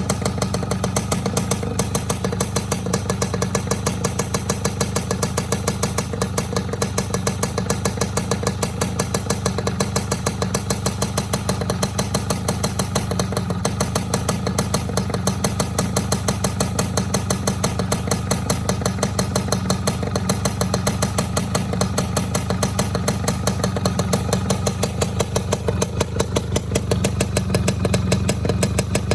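The 110 cc single-cylinder two-stroke engine of a racing-modified Yamaha Fiz R, idling steadily with a rough, snoring "ngorok" note.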